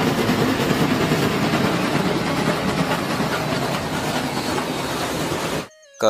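Real steam locomotive running past with its passenger train: a steady, dense noise of engine and rolling wheels that cuts off suddenly near the end.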